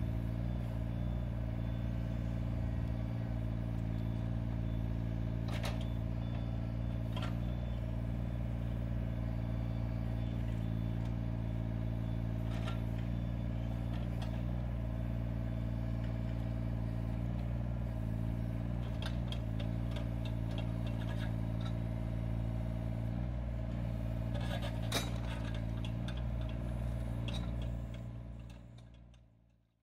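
Yanmar ViO17 mini excavator's 14.5 hp diesel engine running steadily while the boom, arm and bucket are worked, with a few sharp clicks and knocks from the machine now and then. The sound fades out near the end.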